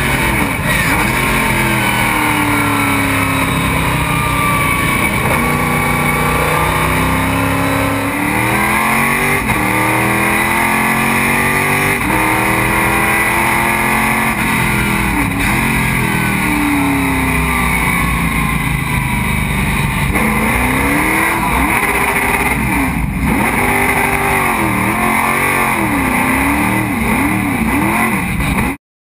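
Stock Car Brasil race car's V8 engine heard from inside the cockpit at racing speed, its revs rising and falling again and again through gear changes and corners. Late on the revs swing up and down in shorter, quicker sweeps, and the sound cuts off suddenly near the end.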